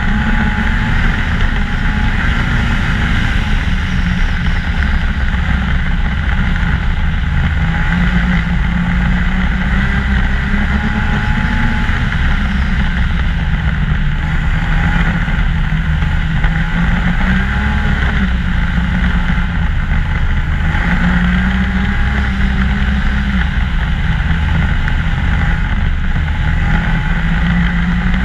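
A 2014 Ski-Doo MXZ 600 snowmobile engine runs steadily at trail-riding speed. Its pitch drifts gently up and down as the throttle changes.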